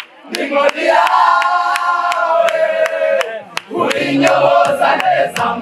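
A group of people singing together in chorus, with steady hand-clapping about three times a second. The singing breaks off briefly just after the start and again about three and a half seconds in.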